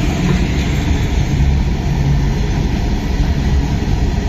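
Freight train's goods wagons rolling past at close range: a loud, steady rumble of steel wheels on the rails.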